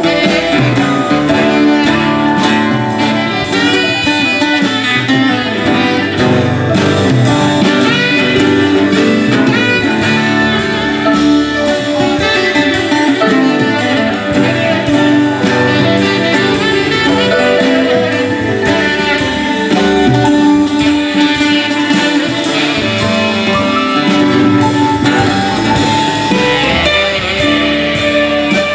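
Live band playing with guitar and saxophone over keyboard and bass guitar, steady and continuous.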